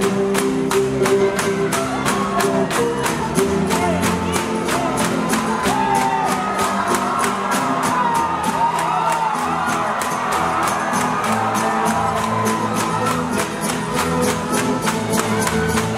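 Tinikling bamboo poles knocked together and against the stage floor in a steady beat of sharp clacks, about three a second, over music, with shouts from the audience.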